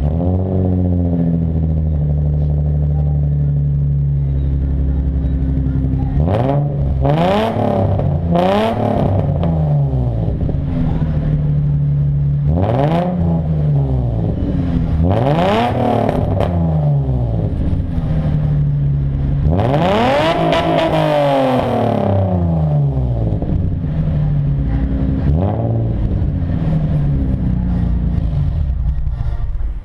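Nissan 350Z's 3.5-litre V6 running through a Manzo aftermarket exhaust with test pipes in place of the catalytic converters. It idles steadily and is blipped about six times, each rev rising and dropping back to idle, with the longest rev a little past the middle.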